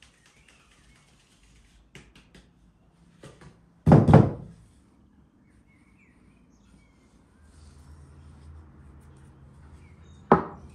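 Kitchen utensils knocking while dough is being started: a loud double knock about four seconds in and a single sharp knock near the end. Faint clicks and a bird chirping come in between.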